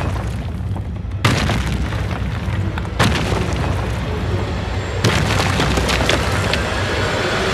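Cinematic trailer sound design: a heavy, continuous low rumble with three deep booming impact hits about two seconds apart, under dramatic music.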